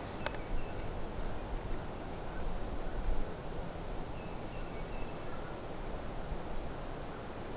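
Quiet outdoor ambience with a low rumble and a few faint bird chirps, plus a small click about a quarter second in.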